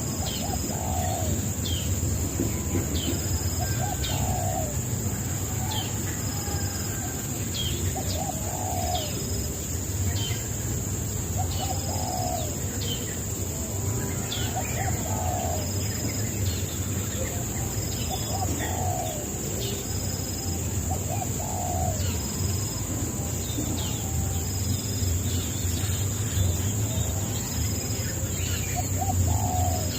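Birds chirping and calling over and over: short lower calls every second or two, mixed with quick high falling chirps, over a steady high hiss.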